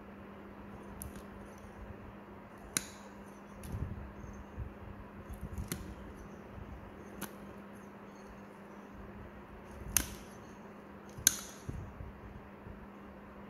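Toenail nippers snipping through a thick, fungus-infected toenail: a series of short, sharp snips every second or two, the two loudest about ten and eleven seconds in, over a steady low hum.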